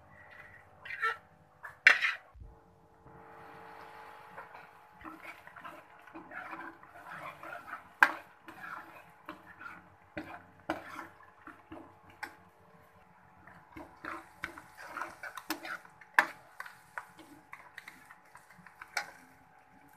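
Sliced onions sizzling in hot oil in a metal pot, with many small crackles and a spatula stirring and knocking against the pot now and then. Before it, a couple of sharp clicks of a knife on a ceramic plate while cutting lemon.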